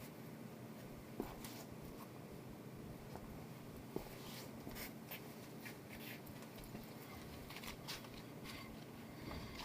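Faint, irregular light clicks and knocks over a low steady hum, with two sharper knocks about a second in and about four seconds in.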